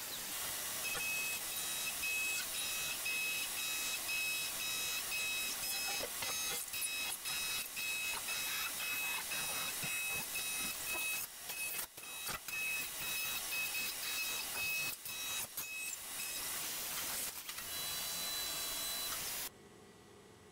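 CNC milling machine cutting a metal part: a steady hiss of coolant spray with a high-pitched whine that pulses on and off in short beeps, and scattered sharp clicks. It cuts off abruptly near the end, leaving quiet room tone.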